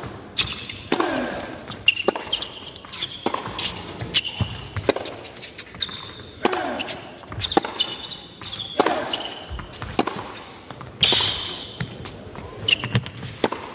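Tennis rally on an indoor hard court: rackets striking the ball back and forth and the ball bouncing, a string of sharp hits about a second apart, with sneakers squeaking on the court between shots.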